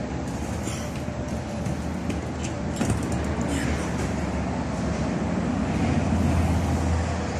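Steady low mechanical hum of a running motor, growing somewhat louder toward the end, with a few light clicks.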